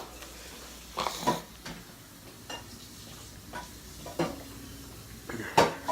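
A cooking utensil stirring and scraping in a pan, with about six separate clinks and scrapes, the loudest near the end, over a faint steady hum.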